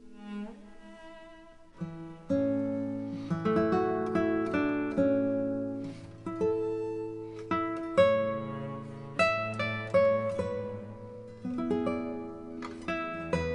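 Background music: plucked acoustic guitar playing over a bass line, with soft notes at first and fuller strummed chords from about two seconds in.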